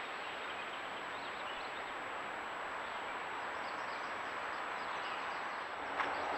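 Steady outdoor background hiss picked up by a trail camera's microphone, with a faint high constant whine and a few faint bird chirps. A sharp click comes near the end.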